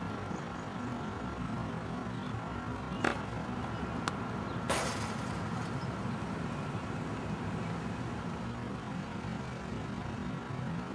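Steady low outdoor rumble like distant traffic, broken by three sharp knocks about three, four and nearly five seconds in, the last the loudest: a tennis serve, racket on ball and ball on the court.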